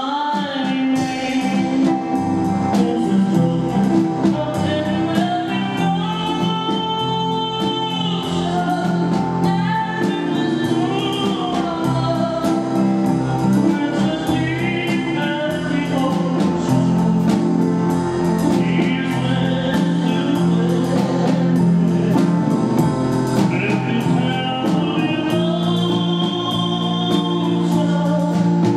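Live rockabilly band playing a slow ballad: a male vocalist singing long held notes over electric guitar, upright double bass and drums.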